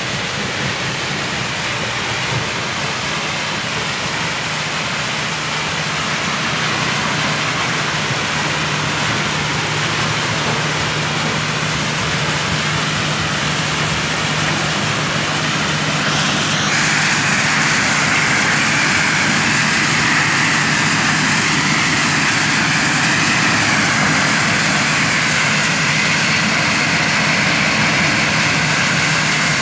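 A 200 TPH stone crushing plant running steadily, its jaw and secondary crushers and belt conveyors dropping crushed stone onto stockpiles. A steady low hum drops out about halfway, and a higher hiss grows louder.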